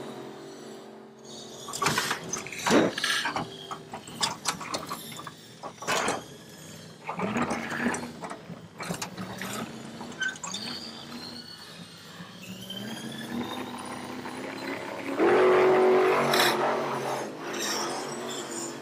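Small electric motor and gears of a radio-controlled toy Jeep whining, rising and falling in pitch as it crawls, with scattered clicks and knocks from its wheels and plastic body on sand and stones, and a louder burst of noise a few seconds before the end.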